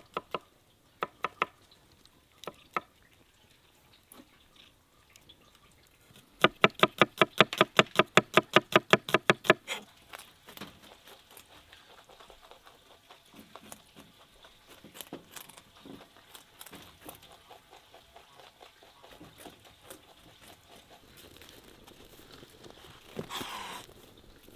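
Knife chopping food on a wooden cutting board: a few separate cuts, then a fast, even run of about five strokes a second for some three seconds. After that, faint irregular crunching of rabbits chewing hay and vegetables, with a brief louder rustle near the end.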